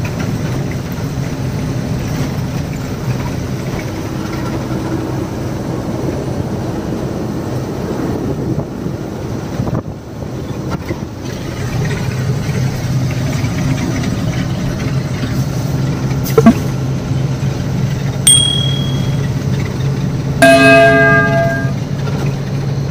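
Goods truck's diesel engine running steadily on the road. About 18 seconds in there is a short high beep, and near the end a loud ringing, bell-like tone lasting just over a second.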